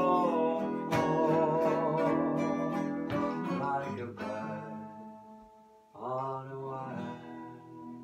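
Acoustic guitars strumming the chords of a slow folk song, with a held, wavering melody note over the first few seconds. The playing thins out and quietens around five seconds in, and a fresh chord is struck about six seconds in.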